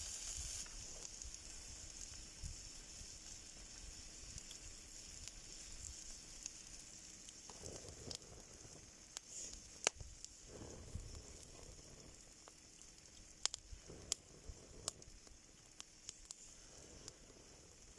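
Sausages sizzling in a cast-iron skillet over a wood campfire, the sizzle slowly dying down, with sharp pops and crackles from the fire in the second half.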